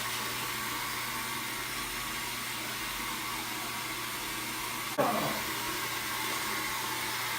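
Steady rushing hiss, with a sharp click and a brief voice about five seconds in.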